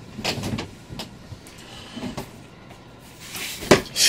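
Bedclothes rustling in short bursts as a person shifts and sits up in bed, with one louder thump near the end.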